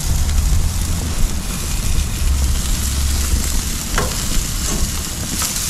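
Duck heads sizzling on a gas barbecue grate over a steady low rumble, with metal tongs clicking against the grate a couple of times near the end.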